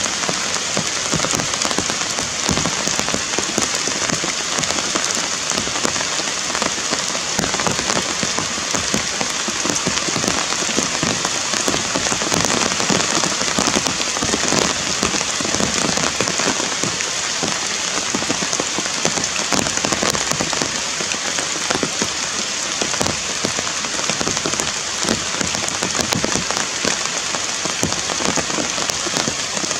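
Steady rain falling on forest leaves and branches: an even hiss of rain dense with many small drop ticks, unbroken throughout.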